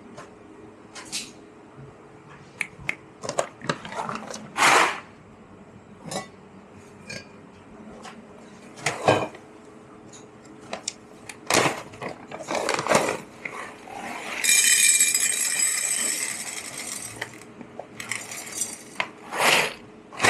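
Clinks and knocks of cups, saucers and barista tools at an espresso bar over a low steady hum, with a high, even machine noise lasting about three seconds about three quarters of the way through.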